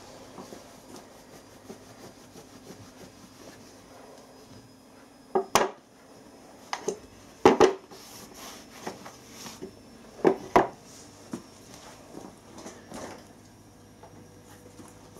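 A cloth rubbing on a steel bearing cup and its flanged metal housing as they are wiped clean, with a few sharp metal knocks and clunks in the middle as the parts are handled and set down on a wooden board.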